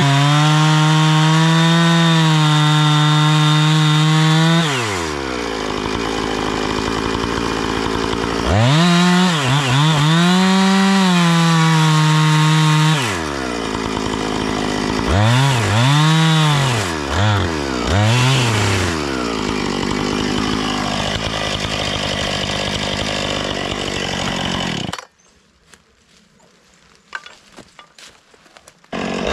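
Two-stroke chainsaw held at high revs for about four seconds, then falling to idle. It is revved again, blipped about four times, and idles before stopping abruptly a few seconds before the end. It comes back up to speed right at the end.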